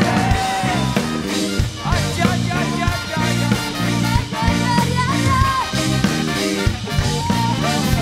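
A live band playing an upbeat song over a steady beat and bass, with a lead melody line bending in pitch above it.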